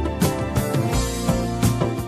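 Instrumental background music: held chords with regular percussive hits.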